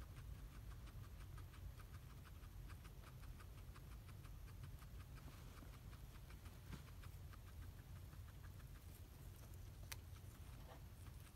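Guinea pig chewing hay: faint, quick crunching at about five chews a second, thinning out later, with one sharp click near the end.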